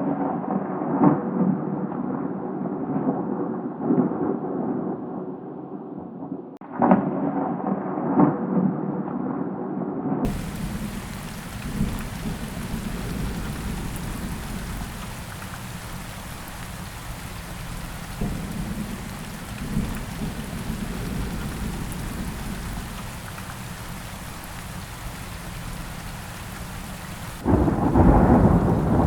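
Thunderstorm: rumbling thunder with several loud peaks over rain, then an abrupt cut about ten seconds in to a steady hiss of heavy rain, and near the end another sudden loud rumble of thunder.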